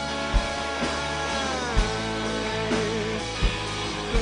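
Live rock band playing a slow song between sung lines: sustained guitar chords with a bending guitar melody over an even kick-drum beat.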